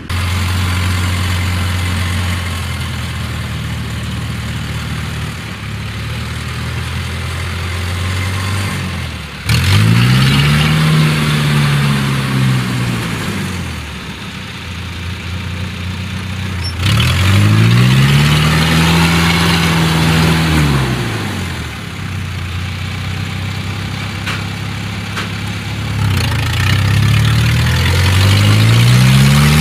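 Engine of a Yanmar combine harvester running at a steady pitch as it moves through a flooded rice paddy, then, after an abrupt change about ten seconds in, the small engine of a homemade tracked mud craft revving up and easing off in long swells, twice, and climbing again near the end.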